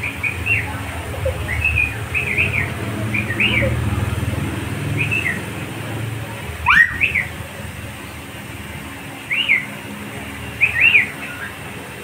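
Cockatiel chirping: a string of short, arched chirps, with one louder rising call about seven seconds in.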